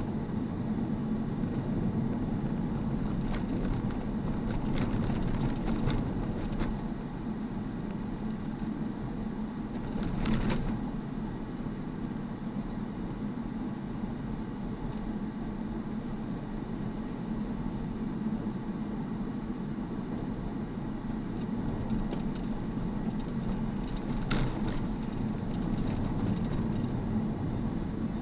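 A car driving, heard from inside the cabin: a steady low hum of engine and road noise, with a few short knocks, the clearest about ten seconds in.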